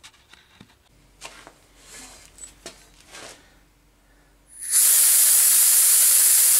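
Stuart S50 model steam engine turning over on compressed air: a few light clicks of handling, then about four and a half seconds in a loud steady hiss of air starts and holds. This is the rebuilt engine running after its repair.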